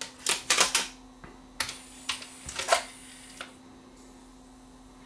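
A run of sharp clicks and taps in the first three and a half seconds as the Rotel RCD940 CD player is handled, over a steady low hum.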